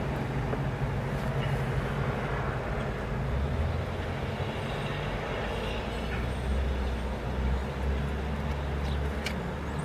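Steady low vehicle engine hum inside a car cabin, with a deeper rumble that swells from about three and a half seconds in.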